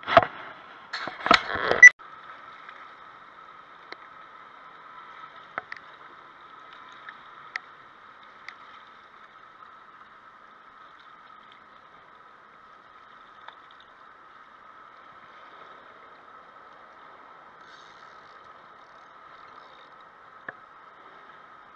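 Fishing rod and reel handled and knocked against rocks in a loud clatter for the first two seconds, then the river lapping faintly at the rocky bank with a few scattered small ticks.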